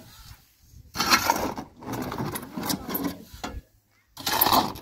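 Shovel scraping through sand and gravel in a pickup truck's metal bed and tipping it onto a pile, in three strokes with short pauses between them.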